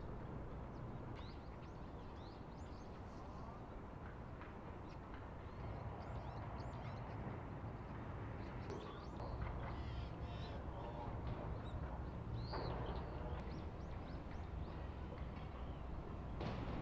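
Birds calling in many short high chirps, scattered throughout, over a steady low rumble of ambient noise.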